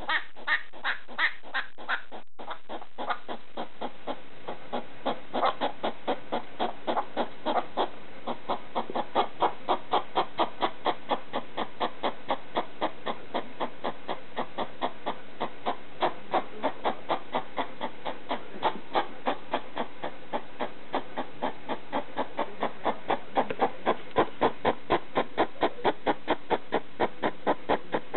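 Pet hedgehog barking: a long run of short, rapid calls repeated about two to three times a second.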